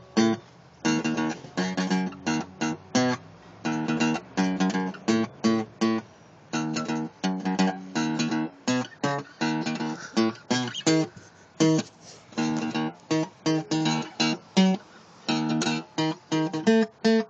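Acoustic guitar strummed in a steady rhythm, chords with short stops between the strokes.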